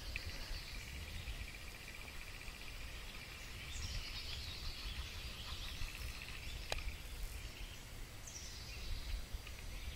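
Faint woodland ambience: a steady high insect trill, with a bird calling twice, once about four seconds in and again near the end, over a low wind rumble. A single sharp click comes about two-thirds of the way through.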